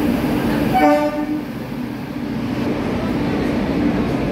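Indian Railways electric-hauled passenger train rolling past a platform with a steady running noise and hum, and one short horn blast about a second in.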